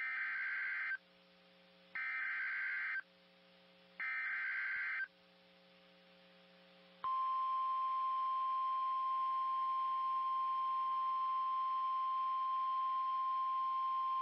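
Emergency Alert System SAME header: three one-second bursts of shrill digital data tones about a second apart, the coded start of a severe thunderstorm warning. About seven seconds in, a single steady alert tone begins and holds: the weather radio attention signal.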